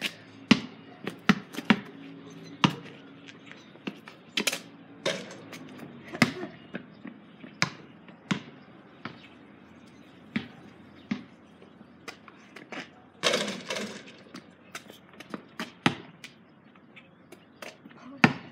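A basketball bouncing on a concrete driveway and striking the hoop, in single thuds at irregular intervals, with a louder cluster of hits about thirteen seconds in.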